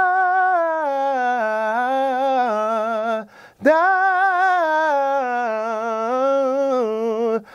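A man singing a vocal riff on the syllable "da", twice: each phrase steps down in pitch with a steady vibrato, a short breath between them a little after three seconds in.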